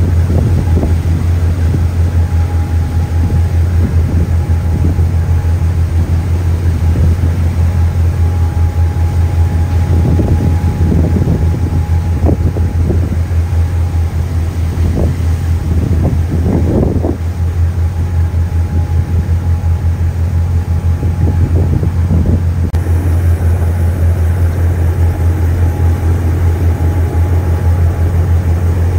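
Steady, loud low drone of a ship's engines underway at sea, with a thin steady whine above it. Short rushing noises rise and fall a few times in the middle.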